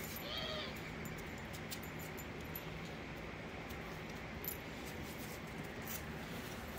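A dog gives one short, high whine that rises and falls during rough play-wrestling with another dog. After it there is only steady background noise with a few faint clicks.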